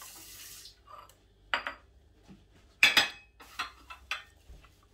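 Dishes and utensils clinking: a ceramic bowl, plate and stainless-steel platter knocked in a few separate sharp clinks, the loudest about three seconds in, followed by several lighter taps.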